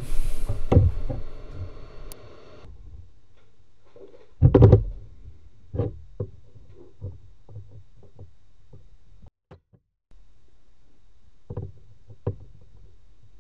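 A steady hiss of blowing air, likely the heat gun, cuts off about two and a half seconds in. Then come scattered clicks and knocks as side cutters grip and work at a stuck, shorted SMD capacitor on a laptop motherboard. The loudest is a knock about four and a half seconds in.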